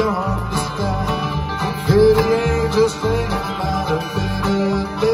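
Live bluegrass band playing an instrumental break: strummed acoustic guitars and an upright bass plucking on the beat, under a lead instrument's held, sliding notes.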